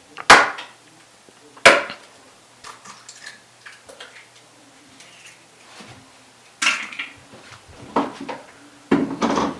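Two sharp knocks, an egg being cracked against the rim of a container, followed near the end by a burst of clinking and clattering of kitchenware.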